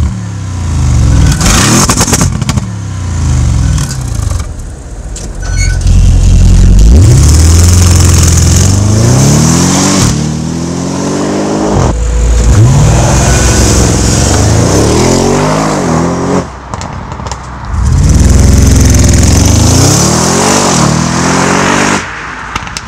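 ABT Power S tuned Audi RS6 Avant's twin-turbo V8 revving hard several times, pitch climbing and falling with each rev, with sharp pops and crackles from the exhaust between revs.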